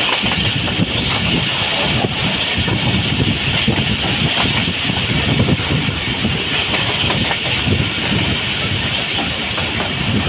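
Passenger train running at speed, heard from an open coach doorway: a steady rumble of wheels on rails with many small clicks over the joints and a constant hiss.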